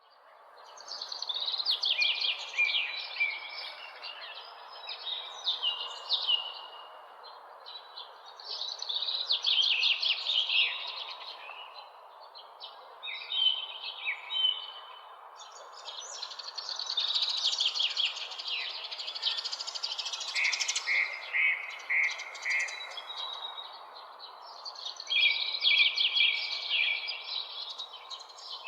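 Songbirds chirping and singing in bursts of quick high phrases every few seconds over a steady background hiss. It fades in over the first second.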